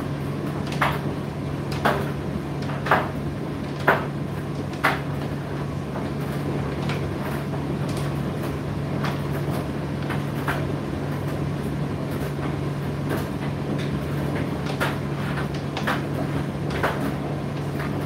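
Indesit IDC8T3 condenser tumble dryer running with a steady motor and fan hum while the drum turns. The load knocks against the drum about once a second for the first five seconds, then fainter and less regularly.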